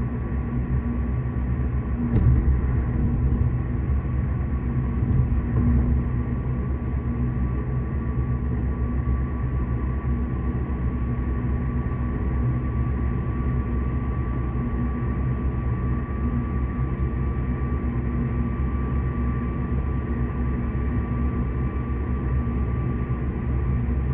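Steady road and tyre rumble of a car at highway speed, heard from inside the cabin, with a faint steady whine. A single sharp click about two seconds in.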